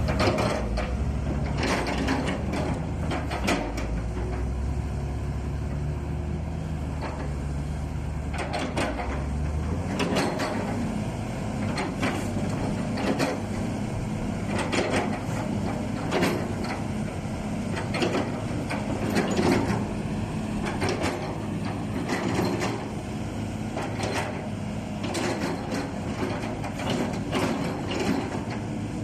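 SANY SY235H excavator's diesel engine running with a steady low hum, which changes and roughens about ten seconds in, under repeated metallic clanks and knocks throughout.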